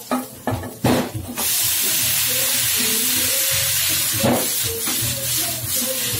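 A few knocks, then about a second in cooked al dente spaghetti hits a frying pan of hot oil and sizzles loudly, a steady hiss from then on.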